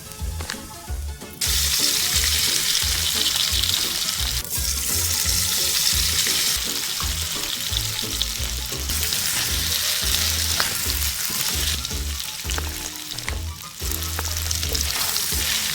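Flour-coated crab frying in hot cooking oil: a steady sizzle that starts suddenly about a second in, when the crab goes into the oil.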